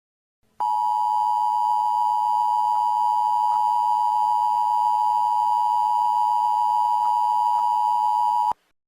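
Emergency Alert System attention signal: a steady, loud two-pitch electronic tone about eight seconds long that cuts off sharply. It announces the start of an emergency alert message.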